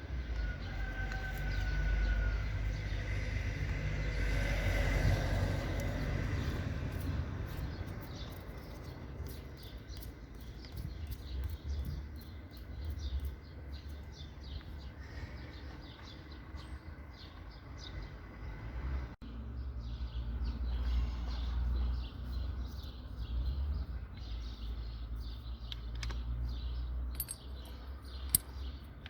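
Hand tools clicking and clinking on metal in irregular short strokes over a low steady rumble.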